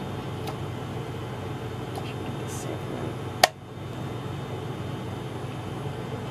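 Steady hum of the space station's cabin ventilation fans and equipment, with a single sharp click a little past halfway and a few fainter clicks as the microscope sample plate is handled.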